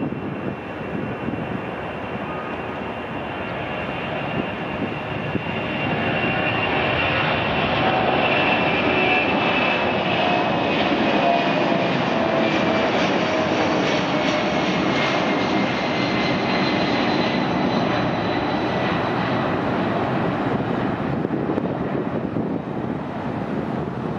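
The four Pratt & Whitney F117 turbofan engines of a Boeing C-17A Globemaster III at takeoff power, a continuous heavy jet roar. It grows louder about six seconds in as the aircraft rolls past and lifts off, with a high whine that slowly falls in pitch as the jet passes and climbs away.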